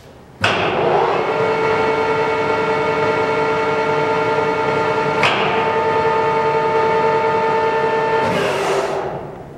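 Kingston HD series heavy-duty gap-bed lathe's geared headstock starting up and running at 530 RPM, a steady gear whine of several tones with a sharp click about halfway through. Near the end the spindle is stopped with the foot brake and the whine dies away.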